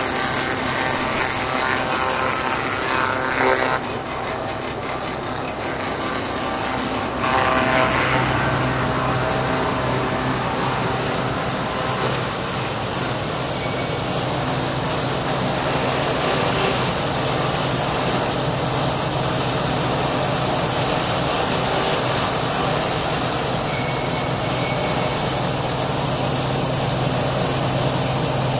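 Wood crusher running steadily as it grinds veneer scraps into sawdust: a continuous loud machine noise with a steady low hum. It drops back a little for a few seconds near the start, then returns.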